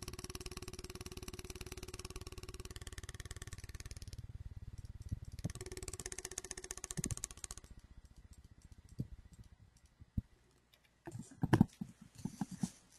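A piece of tape on a spinning permanent magnet synchronous motor flicking against the microphone, a fast run of taps over a faint steady hum. It breaks off about four seconds in, comes back briefly around six to seven and a half seconds, then gives way to a few scattered clicks.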